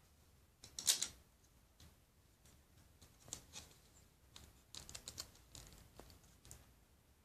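LEGO bricks clicking and clattering as pieces are picked up, handled and pressed together by hand: a string of short, light clicks, the loudest cluster about a second in.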